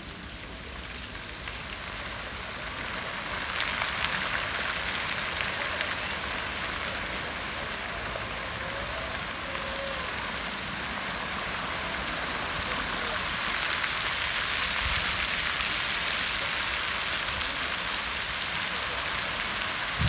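Fountain water jets spraying and falling back into the pool: a steady, rain-like hiss. It grows louder about three and a half seconds in and again past the middle as the jets rise higher.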